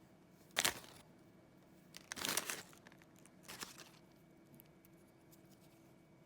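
Plastic packaging being crinkled and torn open to unwrap a mini toy, in three short bursts, the middle one the longest.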